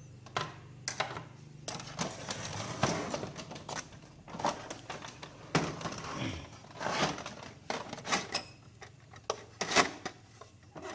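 Irregular clicks, knocks and rustling as a plastic printer and a screwdriver are handled on a workbench, with a few sharper knocks about two-thirds of the way through.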